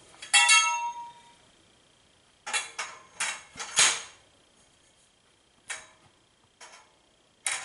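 Metal frame tubing clanking: one pole rings out briefly when struck near the start, then a run of sharp knocks and clinks as the long poles are set into the frame's upright connectors.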